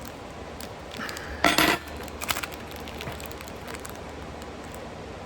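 Light clinks of dishes and cutlery being handled while a salad is put together, with one short loud rattling rustle about a second and a half in.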